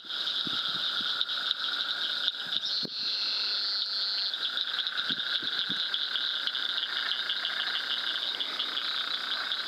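Steady night chorus of frogs and insects, a fast pulsing trill high up with a lower band of calls beneath it, swelling briefly about three seconds in. A few faint soft knocks.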